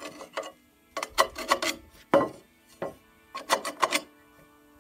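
Screwdriver tip scraping along the plasma-cut edge of a square steel tube, knocking dross off: several short bursts of metal-on-metal scraping and clicks as the slag pops off.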